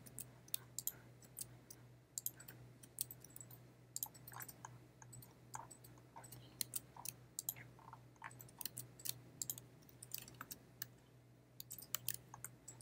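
Faint, irregular clicking of a computer mouse and keyboard, a few clicks a second in uneven groups, over a low steady hum.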